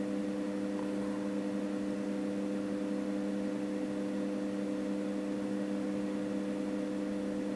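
A steady electrical hum made of a few fixed low tones over a faint hiss, unchanging throughout.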